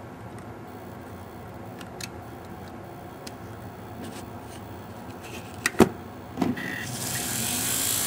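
Small handling clicks as wire leads are connected to a model locomotive's motor, with two sharp louder clicks just before six seconds in. About seven seconds in, the Athearn SD40's flywheel motor starts spinning under DCC decoder power with a steady high whir, a sign that the decoder is working on the bench test.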